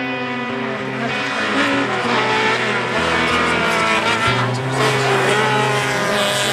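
Music with a bass line that changes note every second or so, mixed with a rally car's engine revving hard.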